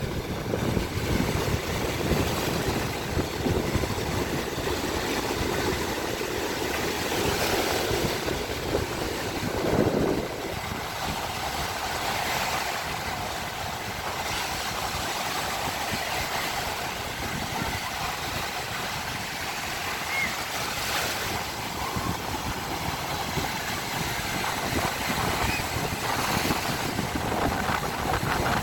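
Baltic Sea waves washing onto the shore, swelling every few seconds, with wind rumbling on the microphone, heaviest in the first ten seconds.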